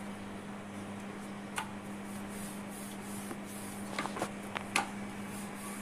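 Kitchen range hood fan running with a steady hum. A few short knocks and taps from a wooden rolling pin rolling out paratha dough on a board, once about a second and a half in and a small cluster near the end.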